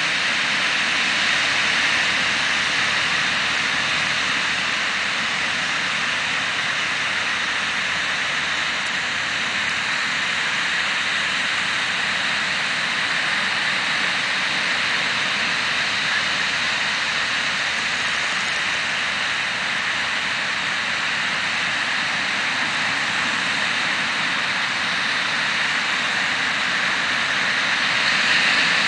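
Ocean surf washing steadily onto a sandy beach, a continuous hiss of small breaking waves that grows a little louder near the end.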